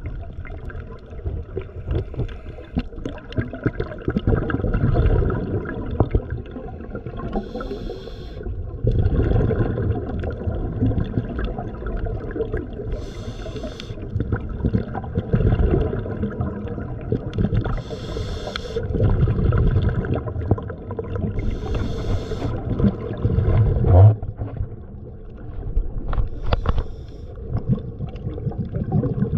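Water churning against the microphone, with a hissing breath every four to five seconds and one sharp knock about two-thirds of the way through.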